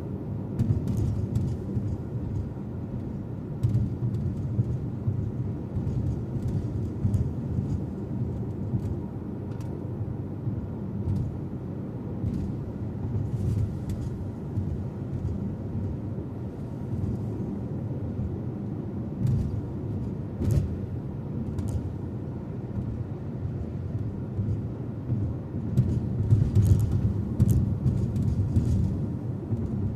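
A car driving: a steady low rumble of tyres and engine on the road, with short ticks and clicks scattered through it.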